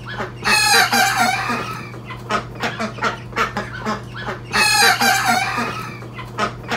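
A young cockerel's immature first crow, rough and wavering, heard twice about four seconds apart. Short clucks come in between.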